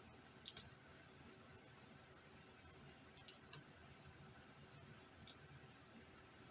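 A few light, sharp clicks of small parts and tools being handled over near silence: two close together about half a second in, two more just past three seconds, and one a little past five seconds.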